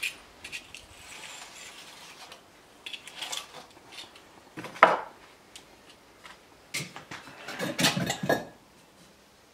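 Knife scraping and cutting a sheet of fibre insulation against a brick, with a sharp knock about five seconds in. Then a run of clinks and scrapes as clay bricks are handled and set onto a brick stove.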